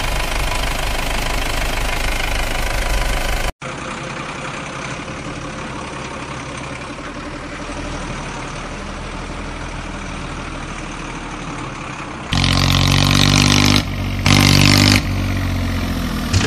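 Dubbed truck engine sound effect, running rough and then cutting abruptly to a quieter engine loop about three and a half seconds in. Two loud, long pitched blasts come near the end.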